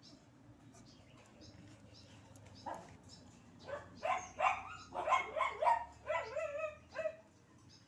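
A dog giving a run of short yips and whines, starting about three seconds in and lasting about four seconds.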